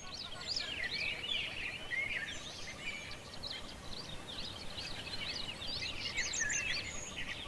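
Many small birds chirping and singing at once, a dense overlapping chorus of quick high chirps and trills.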